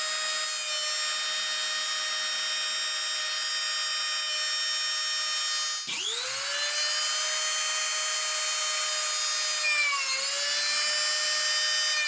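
Dremel rotary tool with a cutoff disc running at a steady high whine, briefly dropping out and spinning back up about six seconds in. Near the end its pitch sags slightly as the disc grinds into the tip of a metal drill bit to shape a brad point.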